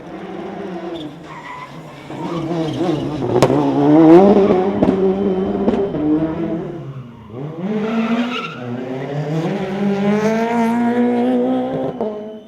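Two-wheel-drive rally car engine revving hard on a stage, its pitch climbing and falling with throttle and gear changes, with a few sharp cracks. It is loudest about four seconds in, drops away around seven seconds, then climbs again in a long rising run before falling off near the end.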